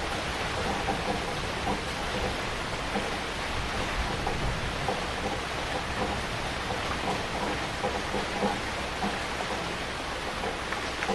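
Heavy rain falling steadily: a dense, even hiss with many individual drops spattering on a surface.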